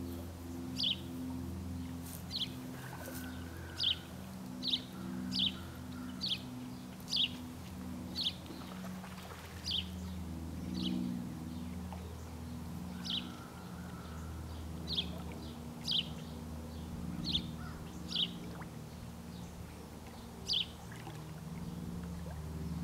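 A bird calling with short, sharp, high chip notes, repeated irregularly about once a second, over a low steady drone like a distant engine.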